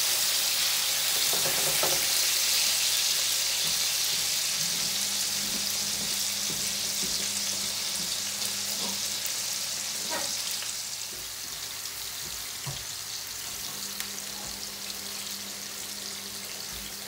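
Boal fish steaks frying in hot oil in a frying pan: a steady high sizzle that eases off somewhat after about ten seconds, with a few faint clicks.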